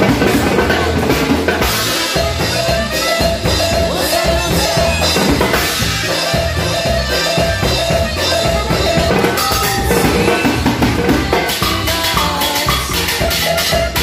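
Stainless-steel timbales, with a cymbal and a mounted block, played with sticks along to a recorded band track. Sharp rim and shell strikes run in a dense, steady rhythm over the music.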